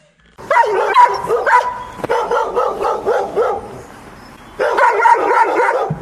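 Puppy yapping and whining, a rapid run of short high-pitched yips, with a pause of under a second a little past the middle before it starts again.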